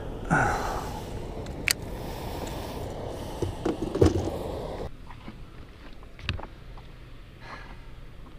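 Wind and water noise with a few knocks and bumps of handling aboard a small fishing boat; about five seconds in it drops suddenly to a quieter wash with one more knock.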